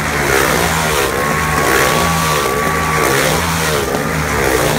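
Motorcycle engines revving hard as riders circle inside a steel mesh globe-of-death cage; the engine note swells and fades in a quick repeating rhythm.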